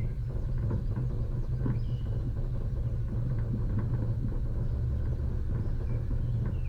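Offroad vehicle's engine running with a steady low rumble, with faint bird chirps over it.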